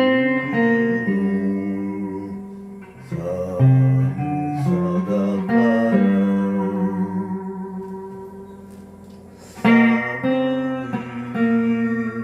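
Guitar music: chords struck and left to ring out, with fresh strums near the start, about three to four seconds in and again about ten seconds in.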